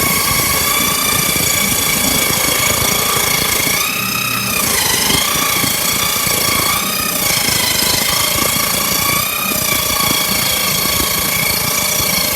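Homemade table saw's circular blade ripping a thin strip from a thick piece of wood, a loud steady whine. The pitch sags several times as the blade bogs under the feed, then recovers.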